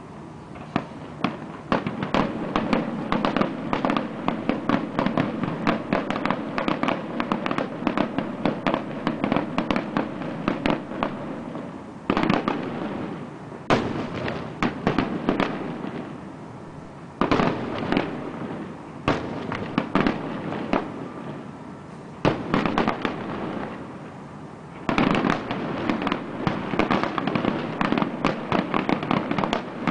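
Fireworks finale: shells bursting in rapid, dense volleys of bangs and crackles, a long continuous barrage in the first twelve seconds, then shorter volleys broken by brief lulls.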